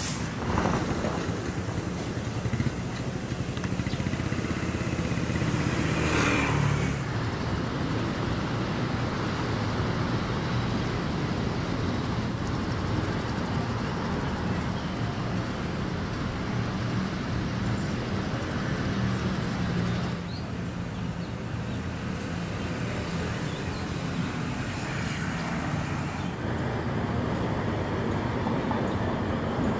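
Road traffic: vehicle engines and tyres running past in a steady stream, with one louder vehicle passing about six seconds in.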